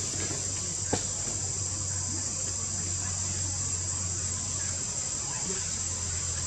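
Steady, high-pitched chorus of insects buzzing in the trees, over a low steady hum, with one sharp click about a second in.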